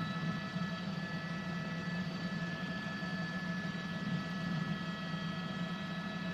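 Steady helicopter noise heard inside the cabin: a constant low drone with a high, even turbine whine over it.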